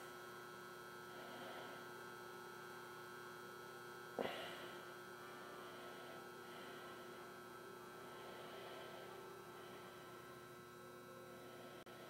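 Quiet room tone with a steady electrical hum and faint hiss, broken once by a brief knock about four seconds in.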